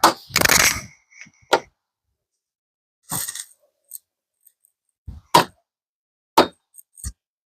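Scattered sharp clicks and clatters of tools and plastic trim parts being handled, with a short cluster near the start and then single knocks every second or two.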